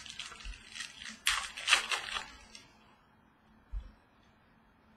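Trading cards being handled: a couple of seconds of rustling and scraping, loudest about one and a half seconds in, then quiet apart from a soft low thump near four seconds.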